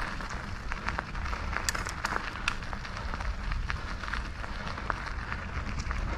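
Mountain bike riding over a dirt trail: tyres crunching over the ground, with frequent sharp clicks and rattles from the bike, the sharpest around two seconds in. A steady low wind rumble sits on the camera's microphone.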